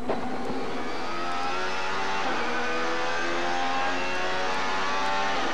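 Alfa Romeo 155 V6 TI touring car's V6 racing engine heard from on board under full throttle, its pitch climbing steadily. About two seconds in, the revs drop back once for an upshift, then climb again.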